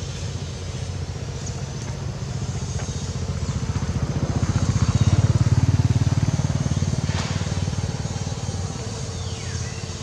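A motor vehicle's engine running with a low, even pulse, growing louder to its peak about halfway through and then fading again.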